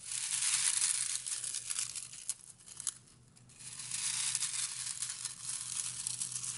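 A hand crushing and rummaging through crisp oven-baked kale chips in a bowl: a dry, crinkly crackling, in two stretches with a short pause about two and a half seconds in.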